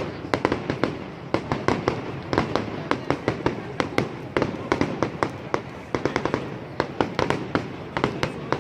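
Fireworks going off: a dense, irregular run of bangs and cracks, several a second and of uneven loudness, over a steady background hiss.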